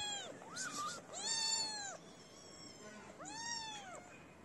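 Stray kittens meowing in high, arching mews: a long one about a second in, a short higher squeak just before it, and another meow near the end.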